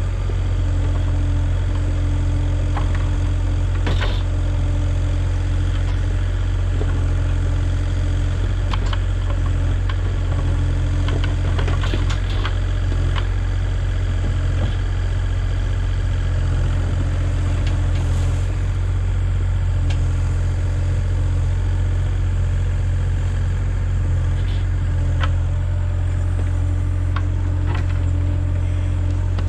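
Kubota KX040-4 mini excavator's diesel engine running steadily as the machine digs, with a few sharp clicks and scrapes as the bucket works the soil.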